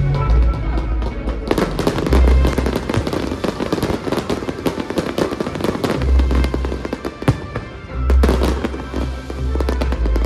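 Fireworks bursting: a dense run of crackling with deep booms about two, six and eight seconds in, over music.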